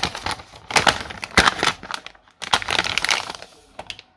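Anti-static plastic packaging bag crinkling and crackling as it is handled and opened to take out a replacement phone display, in two loud spells that die away near the end.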